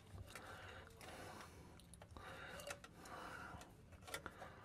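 Near silence with a few faint, light clicks of a new exhaust gasket being fitted by hand onto the riser studs under the car.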